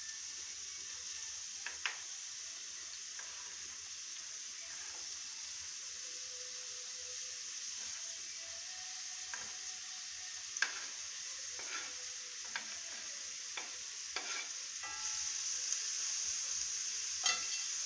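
Finely chopped onion frying in sunflower oil in a frying pan: a steady sizzle that gets a little louder near the end, with scattered sharp clicks of a utensil against the pan.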